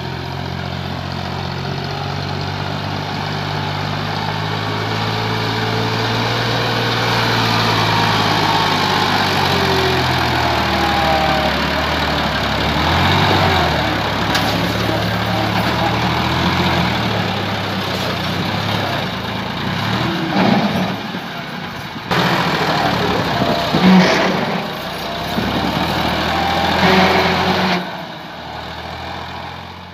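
Massey Ferguson 260 tractor's diesel engine working hard as it hauls a heavily loaded trolley through sand, with the load enough to lift the tractor's front wheels. The engine note shifts in pitch, with louder surges near the end.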